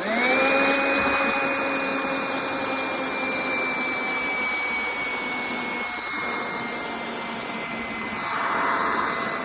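Black+Decker cordless handheld vacuum switched on and running: its motor spins up at once to a steady high whine that sinks slightly in pitch, with a brief louder rush of suction noise near the end.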